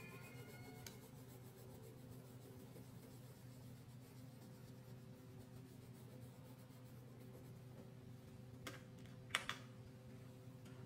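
Faint scratching of a crayon colouring on paper over a steady low hum, with two sharp clicks a little under a second apart near the end.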